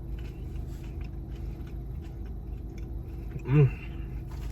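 Chewing and biting into a fast-food chicken sandwich, soft mouth clicks over a steady low background hum, with a short hummed "mm" from the eater about three and a half seconds in.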